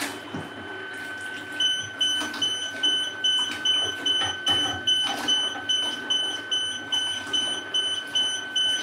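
Elegoo Mercury X resin cure station's alarm beeping rapidly, about two to three high beeps a second, over a steady high tone. It is the station's warning that its UV cover has been lifted off.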